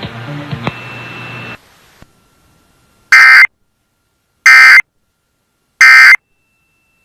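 Emergency Alert System end-of-message data bursts: three identical short, loud, screechy digital squawks about a second and a half apart, marking the close of the alert test. Before them, lower background audio runs until it cuts off about a second and a half in.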